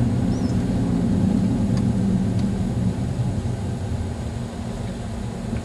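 Steady low rumble of a car's engine and tyres heard from inside the cabin, growing quieter over the last few seconds as the car slows down.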